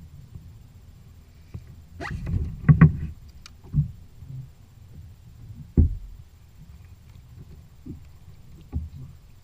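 Knocks and thumps on a kayak, a cluster about two to three seconds in and a single sharp one near the middle, over a low steady rumble.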